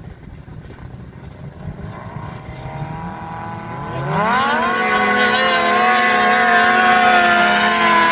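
A racing vehicle's engine, running low at first, revs up sharply about four seconds in and then holds at high revs with a loud, steady, slightly wavering pitch.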